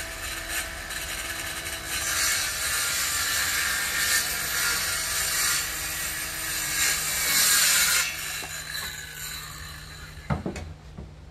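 Cordless circular saw running and cutting through a wooden board for about eight seconds, then winding down, with a single thump near the end.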